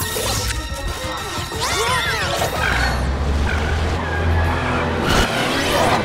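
Cartoon action music mixed with sound effects: a crash, whooshes near the start, about two seconds in and about five seconds in, and a deep rumble through the middle that stops about five seconds in.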